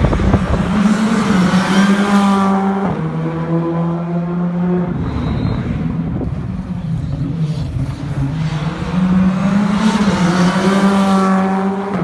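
Rally car passing at full throttle, its engine note dropping sharply as it goes by; a second rally car passes the same way near the end.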